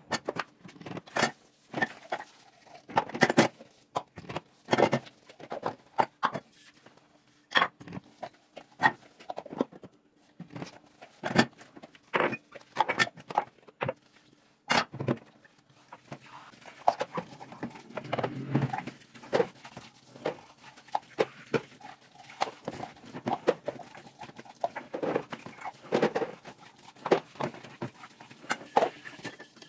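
Dishes being washed by hand: plastic cups and bowls knocking and clattering against each other and the sink, with the rub of a soapy sponge. Later on, the tap runs steadily as the dishes are rinsed.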